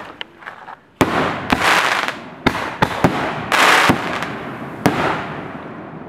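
Fireworks going off: a loud bang about a second in, then a run of sharp cracks over a crackling hiss that dies away over the last second.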